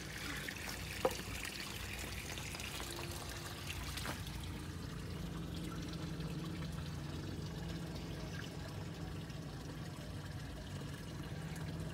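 Water trickling and pouring steadily at a backyard pond and stock-tank setup, with a low hum underneath. One brief sharp knock about a second in.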